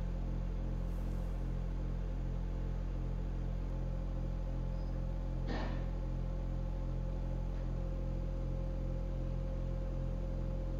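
Sound installation giving out a steady low electronic drone of several held tones layered together, with a higher tone held above them. A single sharp click cuts through about halfway.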